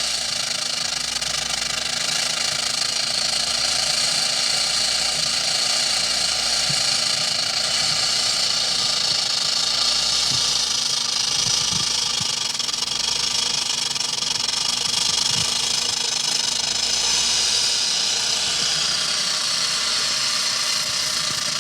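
Rattlesnake shaking its tail rattle: a continuous, steady buzzing rattle.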